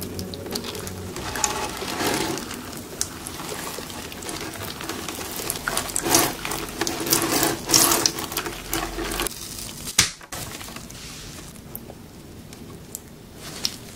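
Water showered over trays of wheatgrass, drops pattering on the blades with a sound like rain, heaviest past the middle and easing off near the end, with a sharp click after it stops.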